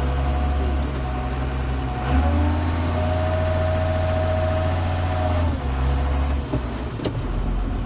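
Tractor engine running with a steady whine over it; the engine note and whine shift up about two seconds in as it takes on revs or load, and drop back about five and a half seconds in. A sharp knock near the end.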